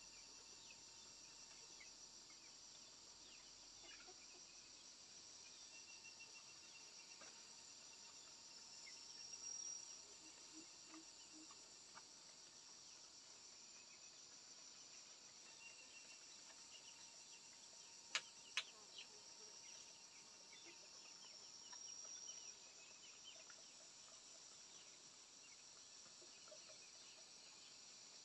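Faint steady chorus of crickets and other insects, with two sharp knocks in quick succession about two-thirds of the way through.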